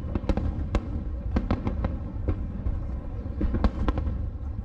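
Fireworks display: aerial shells bursting in a rapid, uneven series of sharp bangs and booms, a dozen or so in the few seconds, over a steady low rumble.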